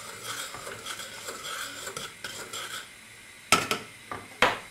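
A metal spoon stirring thickening orange sauce in a stainless steel saucepan, a soft uneven scraping. Near the end come two sharp metal clacks as the spoon is taken out and put down.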